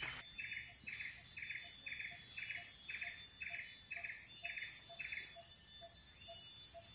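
A wild animal's rhythmic chirping call in tropical forest: short, even chirps repeated about two times a second, stopping about five seconds in.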